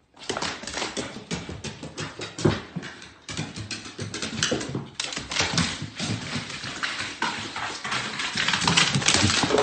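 A dog's claws and paws clattering on hardwood stairs as it goes down, a fast, uneven run of clicks and taps.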